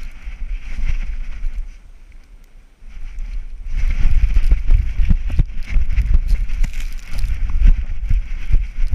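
A Labrador running in snow with a GoPro mounted on its flotation vest: the camera is jostled by the dog's footfalls, giving a string of quick thumps over a low rumble. There is a brief quieter lull about two seconds in, and the thumps are louder and faster from about four seconds on.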